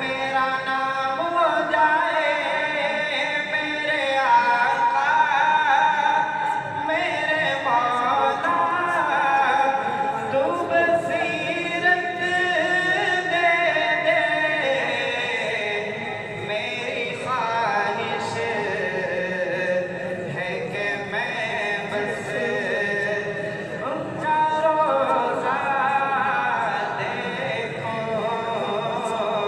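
Unaccompanied singing of an Urdu naat: long, wavering held melodic lines with no instruments.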